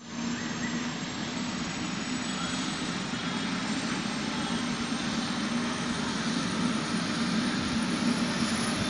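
Turbine helicopter running on the ground: a steady engine and rotor noise with a thin high-pitched turbine whine that slowly rises in pitch.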